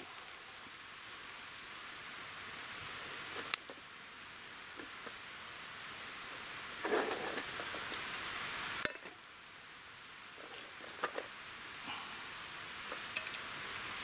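Bacon and fried egg sizzling in a small non-stick frying pan over a wood fire, with a short scrape of the spatula in the pan about seven seconds in as the food is lifted out. The sizzle drops off suddenly about nine seconds in, leaving a few small crackles from the wood fire.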